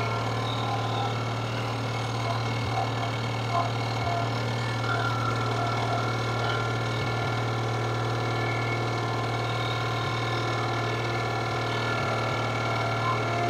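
Skid steer loader engine running steadily as the machine drives along with a load of boards on its forks, a constant low drone.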